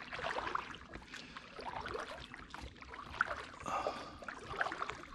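Water splashing and trickling irregularly along the side of a moving inflatable boat.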